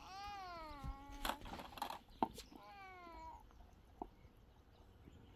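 Two high animal cries, each falling in pitch: one about a second long at the start, a shorter one about two and a half seconds in. A few sharp knocks fall between them.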